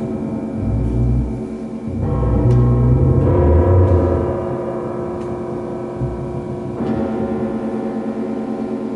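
Large suspended gong ringing with a dense cluster of sustained overtones, and deep low swells in the first half. New strokes add fresh layers about two seconds in and again near seven seconds.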